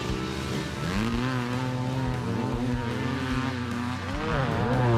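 Two 1981 Maico 490 two-stroke motocross engines revving hard under racing load. The pitch climbs about a second in, holds, dips just before four seconds and climbs again.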